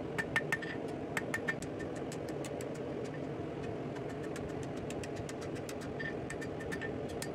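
Blacksmith's hand hammer striking hot steel round bar on an anvil in quick, evenly spaced blows, several a second, each with a short metallic ring, as the bar is bent into a loop handle over the horn. A steady low rumble runs underneath.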